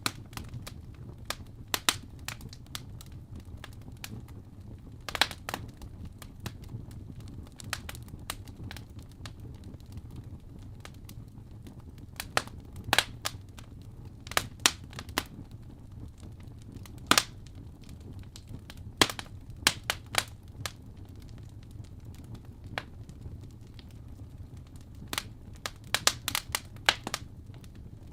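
Fire crackling: irregular sharp pops and snaps, some in quick clusters, over a low steady rumble.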